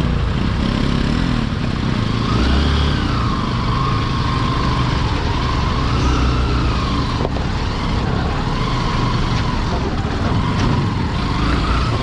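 Bajaj Pulsar NS160's single-cylinder engine running at low revs as the motorcycle picks its way slowly over a rocky dirt track, with a wavering whistle-like tone over it through most of the stretch.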